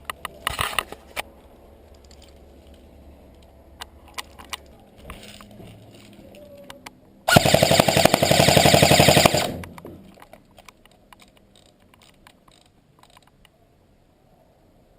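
Airsoft gun firing on full auto: a short rattle of shots just after the start, then one loud sustained burst of rapid shots lasting a bit over two seconds, about halfway through.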